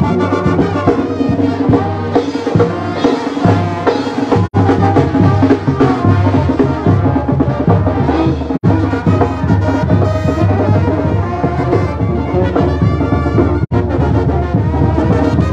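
Latin brass-band music with drums, playing steadily. The sound cuts out for an instant three times.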